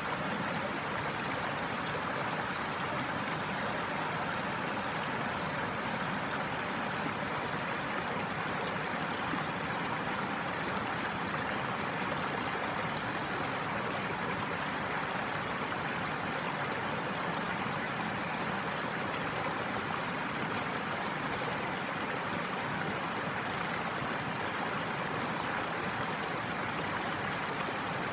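The Tanew river rushing over a low stepped stone ledge in small rapids: a steady, unbroken wash of running water.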